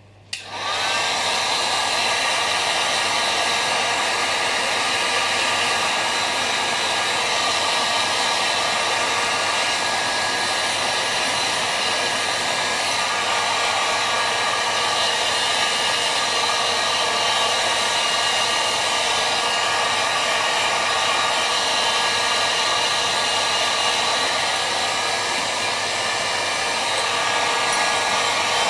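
Handheld electric heat gun switched on with a click just after the start, its fan motor rising to speed within a second and then running steadily, blowing hot air over brass clock parts to evaporate the cleaning solvent.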